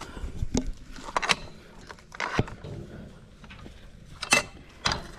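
Farm gate being worked open by hand: its latch hardware clanking and rattling in a handful of sharp, irregular knocks.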